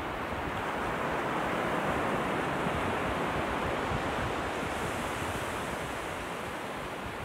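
Ocean surf breaking along the shore, a steady rush that swells a little in the first couple of seconds and eases off, with wind rumbling on the microphone.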